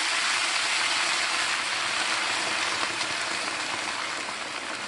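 Chicken broth pouring from a carton into a hot braiser, hissing and sizzling as it hits the pan. The sizzle slowly dies down as the pan cools.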